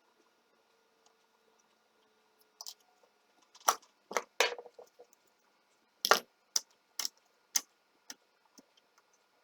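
About a dozen sharp clicks and knocks of small hard parts being handled and worked, at irregular spacing, starting a few seconds in. The loudest come about a third and two thirds of the way through.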